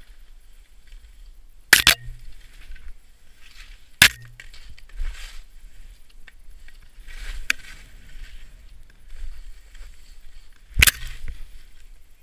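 Skis scraping and swishing through snow, a hiss with each turn every second or two, with three sharp knocks about two, four and eleven seconds in.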